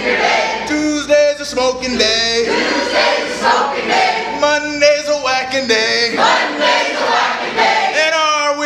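A group of party guests singing and shouting a drinking chant together, many voices overlapping, with held sung notes among the shouts.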